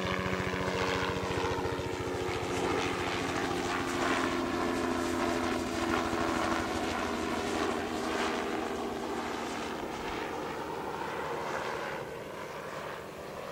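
Bell 206L LongRanger helicopter in flight: fast, even rotor-blade chop over a steady turbine hum. The sound falls away over the last couple of seconds.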